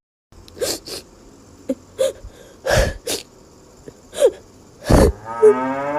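A string of short, sharp sneezes, about seven in all, followed near the end by a drawn-out pitched cry that rises in pitch.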